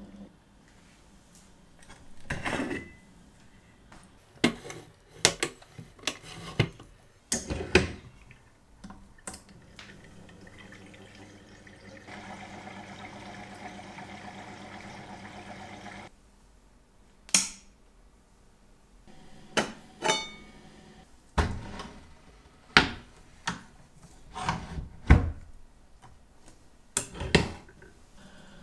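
Clinks and knocks of glass jars and the metal basket head of a vintage Elma watch-cleaning machine, scattered through with some splashing of liquid. For about four seconds in the middle the machine's motor runs steadily, spinning the basket in a jar of isopropanol.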